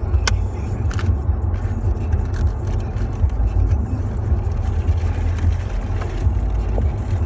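Steady low rumble of a car heard from inside the cabin, with a couple of small clicks in the first second.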